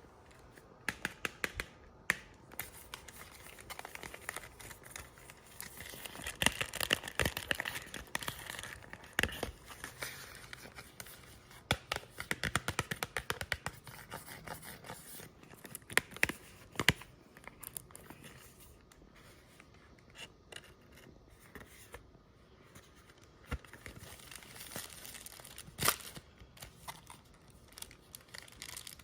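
Chocolate bar packaging being handled and torn open, crinkling and tearing with many sharp crackles and clicks, in bursts with quieter handling between.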